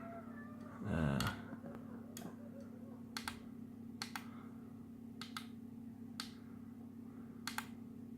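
Sharp single clicks, about eight spread irregularly through a few seconds, some in quick pairs, from the push buttons of an Imax B6 hobby charger being pressed to step the charge current down. A faint steady hum runs underneath, and there is a short murmur about a second in.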